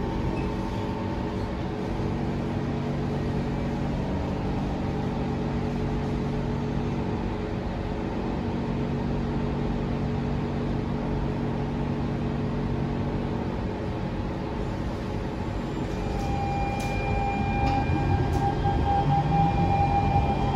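Inside a Siemens C651 metro car, a steady electrical hum of several held tones. Near the end there are a few clicks, then the GTO-VVVF traction inverter's tones start rising in pitch and get louder as the train begins to accelerate.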